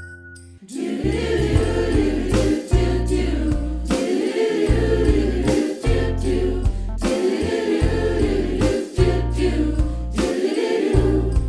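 Upbeat Christmas song intro that kicks in about a second in, with a pulsing bass line, drum hits and choir voices.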